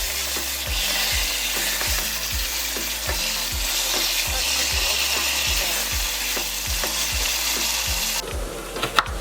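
Chicken pieces frying in hot oil with curry seasoning, a steady sizzle while being stirred in the pot. The sizzle cuts off suddenly about eight seconds in, and a single sharp knock follows near the end.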